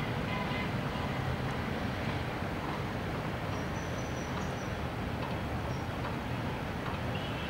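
Steady low rumbling background noise, like distant traffic or wind on the microphone, with a faint thin high whistle about halfway through.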